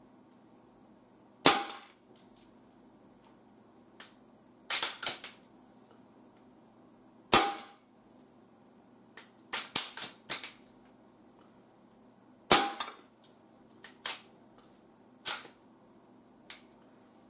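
Artemis CP2 .22 CO2 air rifle fired three times, about five seconds apart, each shot a sharp crack with a brief ring. Between the shots come bursts of quieter mechanical clicking.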